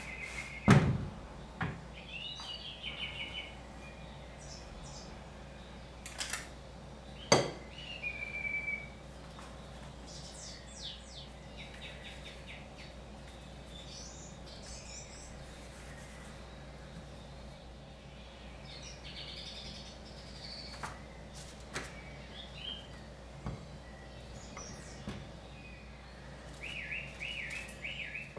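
Small birds chirping, with short runs of quick repeated high notes scattered throughout. A few sharp knocks cut in, the loudest about a second in and two more around six and seven seconds.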